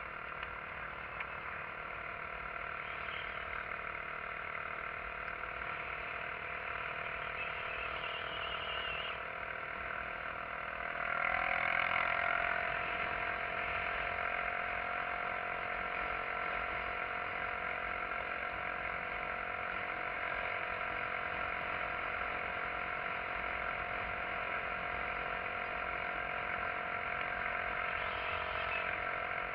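SYM XS125-K motorcycle's single-cylinder four-stroke engine running steadily while riding, with wind rumbling on the microphone. The sound gets louder for a couple of seconds about eleven seconds in.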